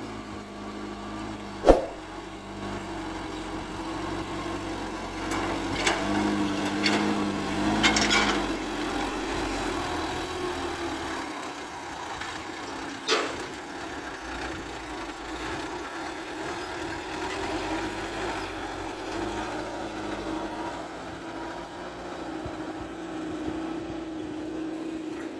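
Diesel engine of a loaded light dump truck running under load as it pulls through mud, swelling louder about six to eight seconds in. Sharp clicks cut in about two seconds in and again around thirteen seconds.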